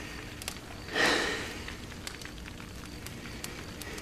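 A short breathy sigh about a second in, over quiet room tone with faint scattered crackling clicks.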